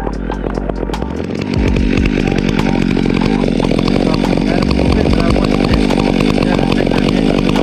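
Stihl MS 362 two-stroke chainsaw running, rising to full throttle about a second and a half in and held there.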